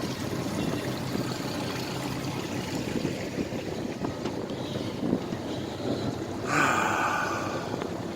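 Boat underway: water rushing past the hull and wind over the low, quiet hum of twin 60 hp Mercury four-stroke outboards. A brief louder hiss of spray or wind rises about six and a half seconds in.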